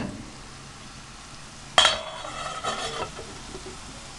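Diced onion sizzling in oil in a frying pan. About two seconds in, a metal lid clanks onto the stainless steel soup pot and rings briefly.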